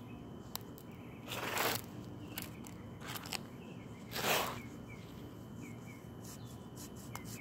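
Hand tools working on a lithium-ion battery's casing: two short scraping noises, about a second and a half and four seconds in, with scattered small clicks. Faint birds chirp in the background.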